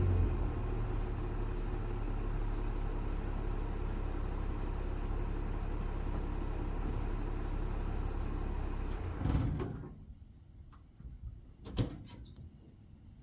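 Ford 300 straight-six engine of a 1965 F100 pickup idling steadily, then shut off about nine and a half seconds in. About two seconds later comes a single sharp knock.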